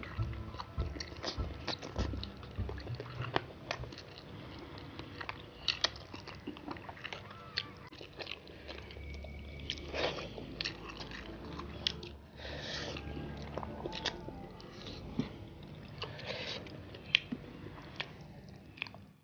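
Close-up eating sounds: two people chewing and biting mouthfuls of rice and fish eaten by hand, with frequent sharp wet mouth clicks.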